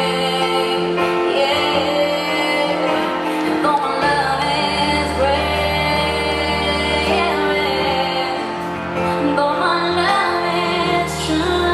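Live pop ballad: a band playing sustained chords over a held bass, with a woman singing wavering, drawn-out lines over it.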